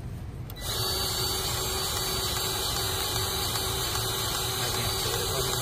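A steady machine noise, a broad rush with a faint hum in it, switches on abruptly about half a second in and runs on at an even level.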